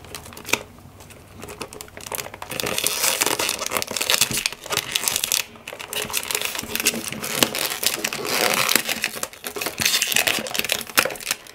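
Clear plastic film wrapper on a perfume box crinkling and crackling as hands peel it off, fainter at first and thicker from about two and a half seconds in.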